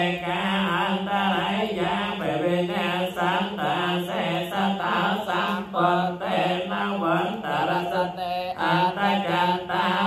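Theravada Buddhist paritta chanting in Pali, recited on one steady low pitch with the syllables moving quickly above it and a few brief breaks.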